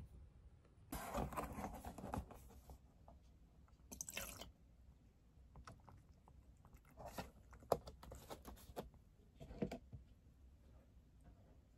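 A cat eating a soft treat from a bowl: faint chewing in several short spells.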